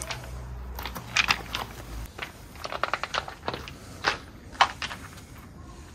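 Footsteps crunching on loose gravel: irregular crunches, the two loudest about four and four and a half seconds in, with a low rumble in the first two seconds.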